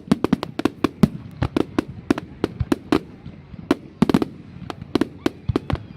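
Fireworks going off: a rapid, irregular run of sharp bangs and cracks, several a second, some with a short echo after them.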